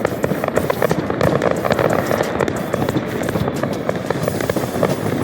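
Dense fireworks barrage: many bangs and crackles overlapping without a break.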